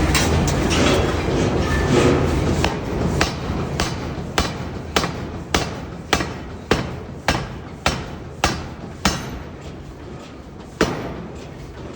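Forging hammer striking metal at a steady pace of a little under two blows a second, about a dozen sharp ringing blows, then a pause and one last blow near the end. Before the blows there is a steady rumbling din.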